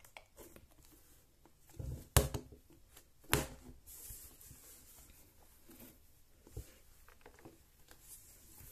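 Hands squeezing and handling a giant rubber stress ball, making soft handling noises. A few sharp louder sounds come through, the two strongest about two seconds and three and a half seconds in.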